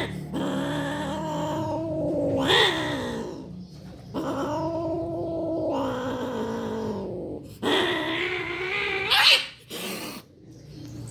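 Domestic cats caterwauling during mating: three long, wavering yowls, the first and last each ending in a sharp rising screech.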